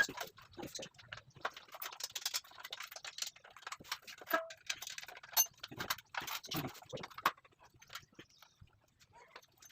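Irregular light clicks, knocks and clinks of the metal parts of an angle grinder stand being handled and fitted together. They come thick for most of the stretch and thin out near the end.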